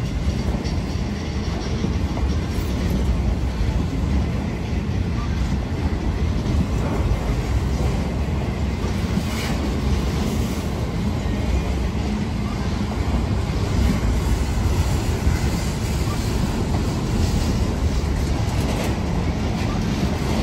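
Long freight train of autorack cars rolling past: a steady rumble of steel wheels on rail.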